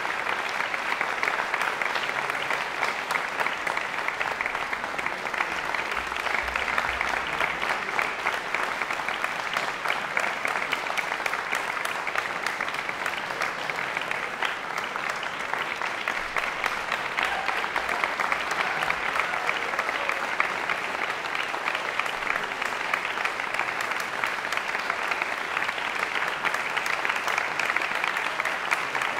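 A large concert audience applauding, a dense, steady clapping that keeps up without a break.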